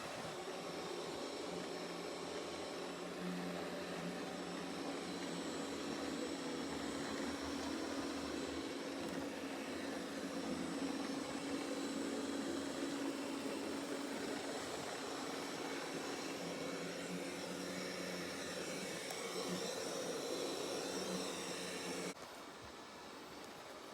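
Roborock Qrevo S robot vacuum running, with a steady whir from its suction fan and brushes. The whir cuts off suddenly near the end, leaving a quieter hiss.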